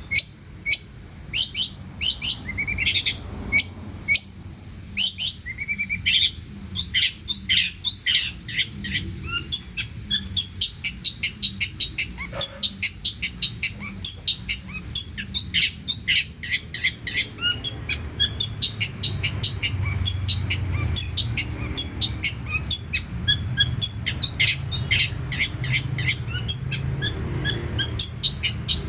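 Long-tailed shrike (cendet) singing in full voice: a long run of sharp high chirps and short whistles, spaced at first and coming in a quick, steady stream after a few seconds, the song full of mimicked phrases of other birds.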